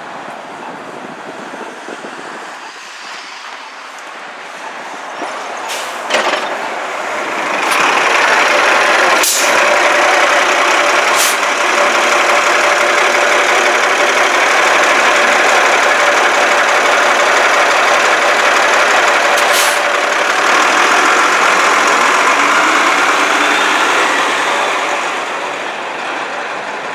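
A New York City transit bus passing close and pulling away. Its engine and road noise swell about a quarter of the way in and hold steady with a tone running through them, then ease off near the end. A few short hisses of air come from the brakes.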